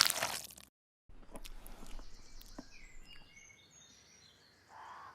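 A short noisy burst that cuts off under a second in, then after a brief gap an outdoor ambience with birds chirping in short high calls.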